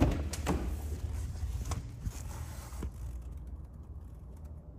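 BMW M850i Gran Coupe door being opened: a sharp latch click, then a few lighter clicks and knocks in the first couple of seconds before it settles.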